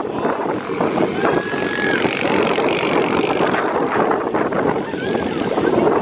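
Steady rushing noise of wind and surf at the beach, the wind buffeting the phone's microphone, with a brief faint high tone about a second in.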